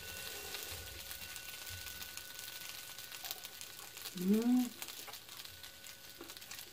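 Herb pancakes sizzling and crackling in hot oil in a frying pan as they are reheated, a steady fine crackle. A short hummed 'mm' of a voice about four seconds in.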